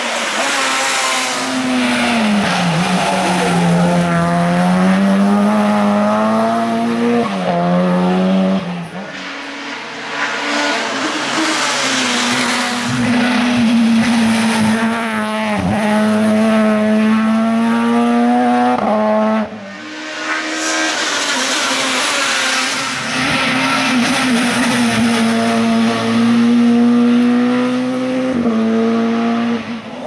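Hill-climb race cars driven hard past the trackside, one after another. Their high-revving engines rise in pitch under acceleration and drop at each gear change, with a short dip in the sound twice where one car gives way to the next.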